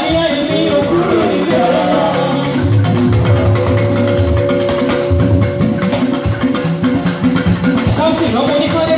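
Live band music with keyboard and drums. A woman sings into a microphone at the start and again near the end, and the keyboard holds long, steady notes in between.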